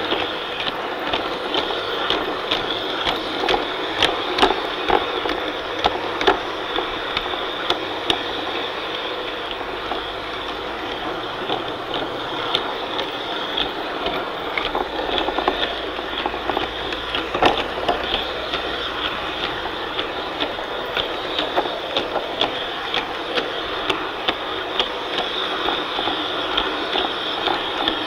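Large-scale garden model train running along its track, heard from on board a coach: a steady rattling clatter of wheels and coach bodies, with many irregular sharp clicks.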